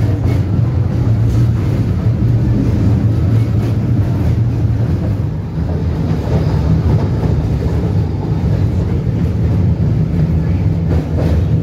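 A 71-605 (KTM-5M3) tram running, heard from inside the passenger cabin: a loud, steady low rumble, with a few faint clicks near the start and near the end.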